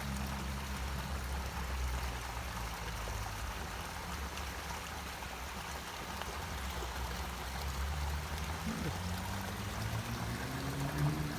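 Running river water: a steady rushing hiss. A low hum sits underneath and rises in pitch near the end.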